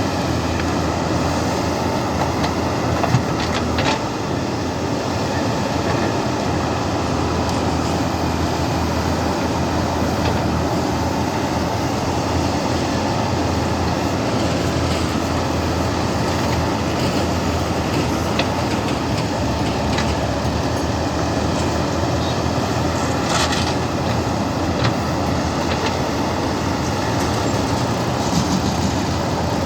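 JCB 3DX backhoe loader's diesel engine running steadily under working load while digging, with a few brief knocks from the digging gear.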